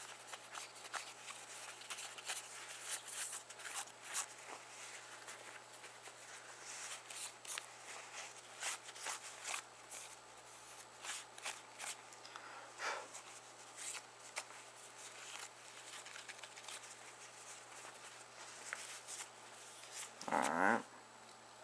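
Faint rubbing and scattered small clicks of a phone screen being wiped with a microfiber cloth and handled. A short hum from the person comes near the end.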